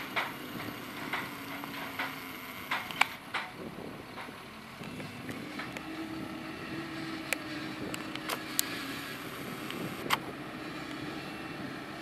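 Claas Scorpion telehandler's diesel engine running under load, its note rising about halfway through and easing off near the end. Scattered sharp clicks and knocks sound over it, most of them in the first few seconds.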